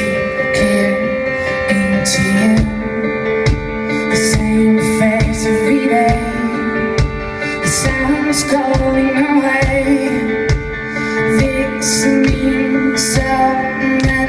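Live band music: a woman singing over sustained keyboard chords, with a steady drum beat and cymbal hits.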